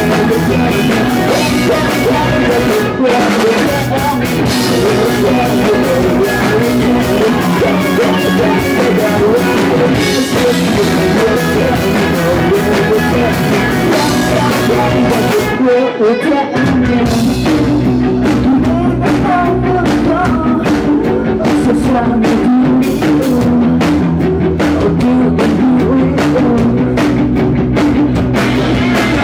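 Rock band playing loud and live: electric guitars, drum kit and a male lead singer. The band breaks off briefly about halfway through, then carries on.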